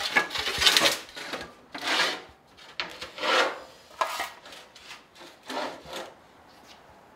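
A sheet of metal being slid and pushed across the steel bed of a sheet-metal shear: a series of about six rasping scrapes, the loudest in the first second, with a couple of sharper clicks, dying away about six seconds in.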